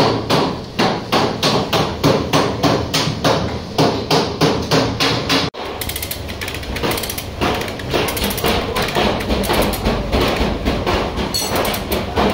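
Hammer blows beating out the crash-damaged sheet-metal body of a Mazda Carol, about three strikes a second. About halfway through the sound cuts off abruptly and a faster, denser run of strikes follows.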